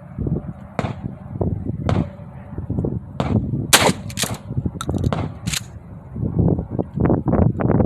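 Gunshots: several sharp reports over a few seconds, the loudest about three and a half seconds in, with a Mossberg 500 12-gauge pump shotgun firing 7.5-shot target loads among them.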